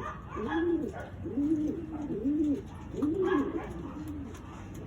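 Domestic pigeons cooing: a run of low, rising-and-falling coos, one after another for about four seconds, then easing off near the end.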